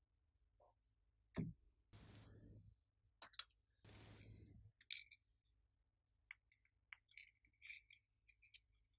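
Glossy slime being worked by hand: a sharp click about a second and a half in, two short hissing squishes, then a run of small clicks and pops.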